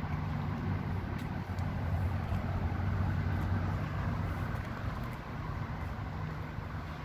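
Low rumble of a passing road vehicle's engine, swelling to its loudest about three seconds in and then easing off.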